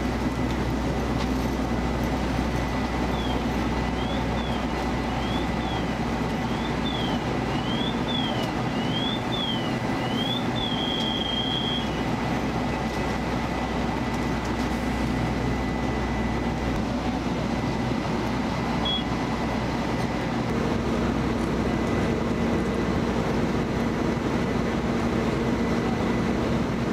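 Fire apparatus engine running with a steady drone. Its note shifts about two-thirds of the way through. A few seconds in, a high electronic tone sweeps up and down about eight times, then holds steady for a moment.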